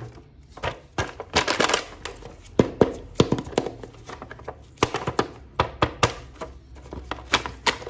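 Hands handling a plastic action figure and its packaging: a fast, irregular run of clicks, taps and short rustles.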